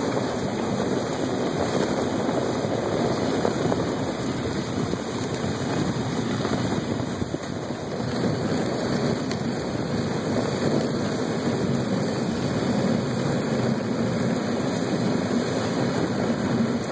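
Dog sled moving along a packed snow trail behind its team: a steady rushing noise of the runners sliding over the snow mixed with wind on the microphone.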